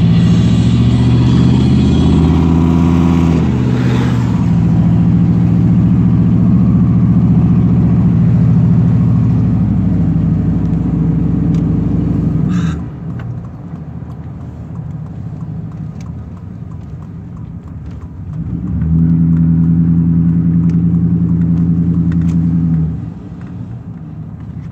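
Inside a moving car: a loud, low, steady drone that drops away sharply about halfway through, leaving quieter road noise with scattered clicks, then swells back for a few seconds near the end.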